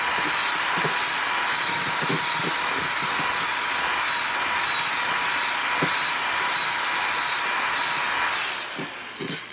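Electric drill driving a mixing beater, churning dirt and fertilizer together, with scattered low knocks from the mix and container. The motor stops near the end.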